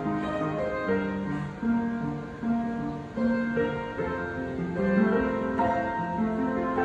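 Instrumental music: a melody of separate held notes over lower bass notes, with no singing.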